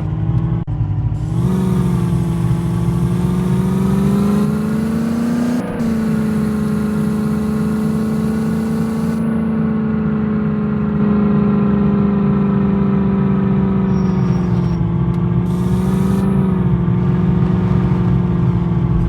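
Jeep engine running steadily under load while driving, its pitch rising slightly about a second and a half in and again around five seconds in. A hiss comes and goes over it.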